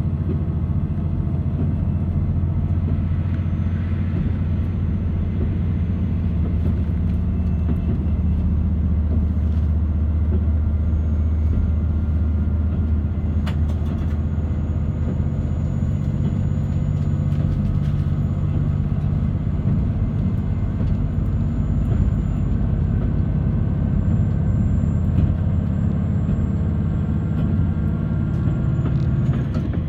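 Diesel railcar running, heard from inside the carriage: a steady heavy low rumble of engine and wheels on the track. A faint high whine rises slowly and drops away near the end.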